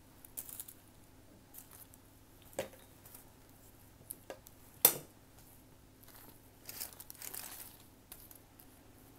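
Hands digging through loose cornstarch and baked cornstarch chunks on a foil-lined tray: scattered soft rustles and crinkles with a few sharp clicks, the loudest about five seconds in, and a longer rustle near seven seconds.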